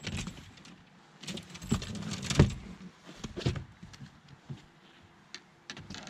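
Light metallic rattling with a series of knocks and clicks as fishing gear is handled on the deck of a bass boat. The busiest stretch falls between about one and three seconds in, and the sharpest knock comes a little over two seconds in.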